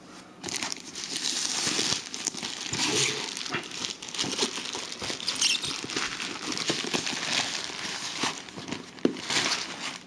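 Plastic mailing bag crinkling and crumpling as it is torn open and pulled off a boxed router. It is a dense run of rustles and small crackles that starts about half a second in.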